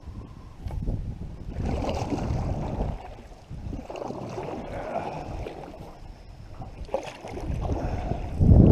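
Canoe paddle strokes pulling through still lake water, with water swishing and gurgling along the hull in swells every two to three seconds. Wind buffets the microphone, heaviest near the end.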